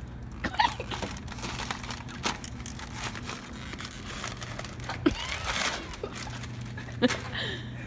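Crinkling and rustling of a snack packet being handled, with scattered clicks and knocks and a few short bits of voices.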